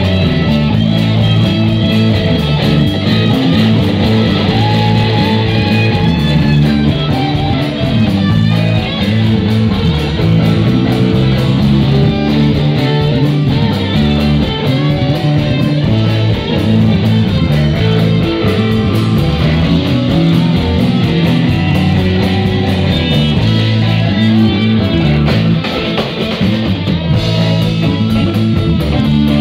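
Live rock band playing an instrumental passage: electric guitars over a drum kit, with no singing.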